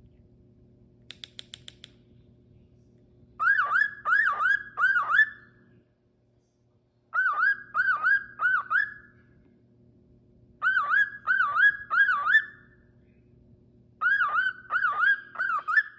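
Cockatiel whistling a phrase of four quick swooping notes, repeated four times with pauses between. A short run of sharp clicks comes about a second in.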